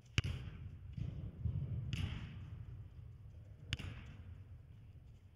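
Soccer ball struck and played on artificial turf: three sharp thuds of boot on ball, at the start, about two seconds in and near four seconds, echoing in a large indoor sports hall over a low steady rumble.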